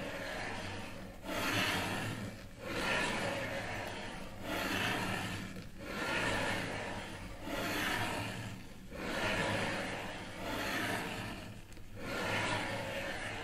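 Rhythmic rubbing noise in long strokes, about one every second and a half, each swelling and then breaking off briefly before the next.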